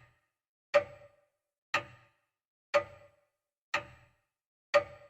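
Steady ticking: a sharp click with a brief ring, once a second, five times, with silence between.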